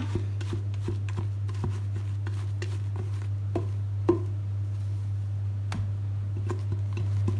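Silicone spatula scraping beaten egg whites out of a metal bowl into a glass bowl of batter, with a few scattered light taps and knocks of the spatula against the bowls. A steady low hum sits underneath.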